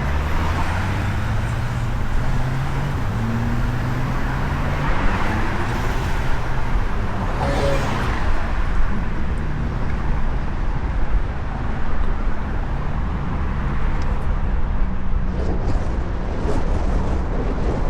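Road traffic: motor vehicle engines running and passing over a steady low rumble, with one engine rising in pitch a few seconds in.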